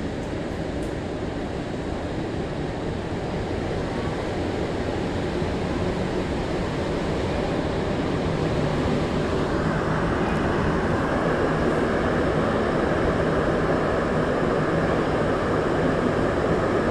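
Interior running noise of a rubber-tyred MR-73 Montreal Metro train in motion. It grows steadily louder, and a higher hum joins about halfway through.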